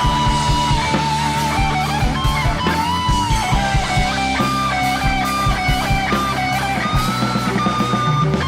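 Instrumental rock music: an electric guitar plays a lead melody with sliding, bent notes over a bass line and a steady beat.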